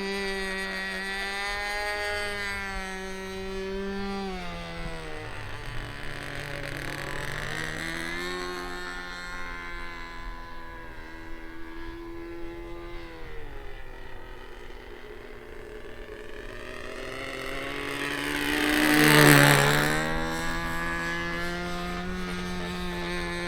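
Model-aircraft glow engine, an SH GF6 .37, running in flight, its pitch falling and rising a few times as the plane throttles and turns. About nineteen seconds in it swells to a loud close pass, the pitch sweeping sharply as it goes by.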